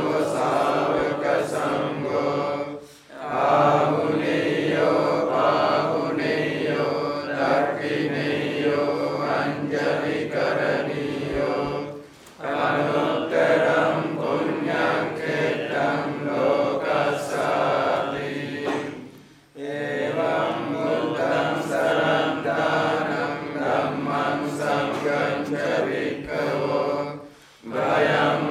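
A group of Buddhist monks and lay followers chanting Pali verses together in unison, a steady recitation broken by brief pauses for breath about every eight seconds.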